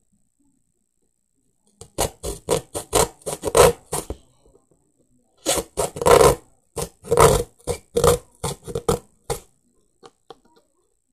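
Utility knife sawing through corrugated cardboard in quick back-and-forth rasping strokes, about five a second. The strokes come in two runs, starting about two seconds in, with a short pause around the middle.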